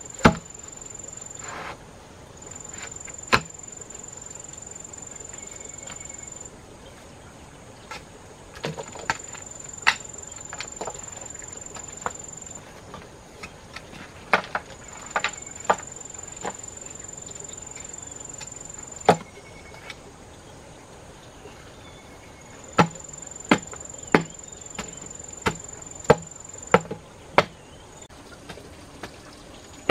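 A wooden pole ramming soil into a post hole around a bamboo post: irregular knocks, coming about once a second near the end. An insect drones high and steady in stretches of a few seconds with short breaks.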